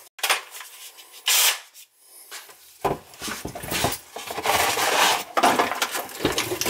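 Cordless reciprocating saw rasping through a PVC drain pipe, starting about three seconds in, after a few knocks as the saw is set against the pipe.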